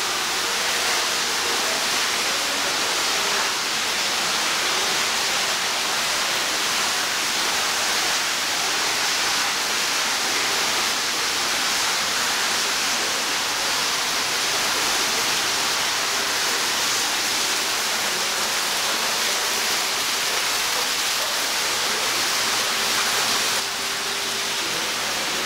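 A steady, even rushing hiss of indoor background noise, with no distinct events.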